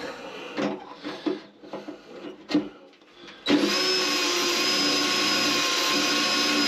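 A cordless DeWalt battery drill starts suddenly about three and a half seconds in and runs at a steady full-speed whine, boring a pilot hole through the boat's hull until it breaks through. Before it come a few light knocks and handling sounds.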